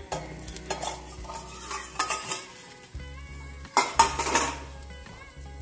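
A steel bowl and metal utensils clattering against an iron tawa as the bowl is lifted off a fried egg, over the sizzle of the egg frying in oil. A few sharp clinks, with the loudest clatter about four seconds in.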